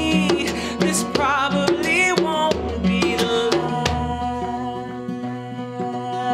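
Live band playing with a steady drum beat. In the first half a melody line bends and wavers in pitch, and from about four seconds in a long note is held over the drums.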